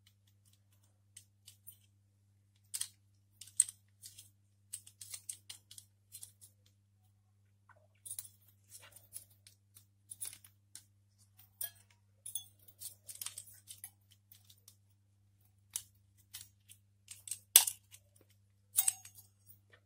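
Plastic and metal clicks and rattles of an Intel stock CPU cooler being handled and taken apart by hand: its plastic push-pin clips, fan frame and aluminium heatsink knock together. A sharper clack comes near the end. A faint steady low hum sits underneath.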